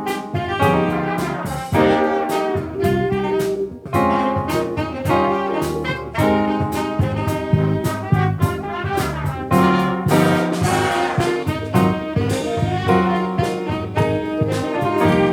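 Big band playing jazz live, with brass and saxophones over drums.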